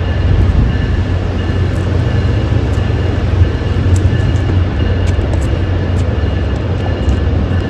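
Train passing at close range: a loud, steady rumble with a faint high ringing tone above it and occasional light clicks.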